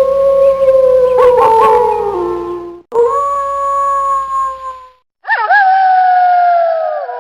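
Wolves howling: long, steady howls that slide down in pitch at their ends, with short gliding calls from a second animal over the first howl. After about three seconds another howl cuts in, and after a short silence a third begins with a quick dip in pitch and slowly falls.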